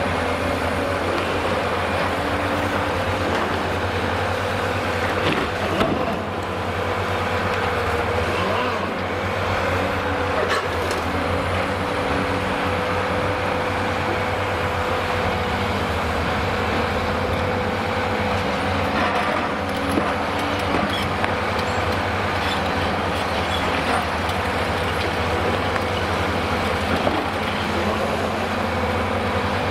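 Cat 390D high-reach demolition excavator's diesel engine running steadily under load, with a steady tone over the engine hum. Now and then there is a sharp crack or knock as concrete breaks off the building.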